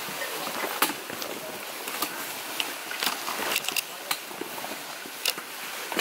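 Hikers walking on a wet trail in plastic rain ponchos: footsteps and crinkling plastic with many scattered sharp clicks over a steady hiss.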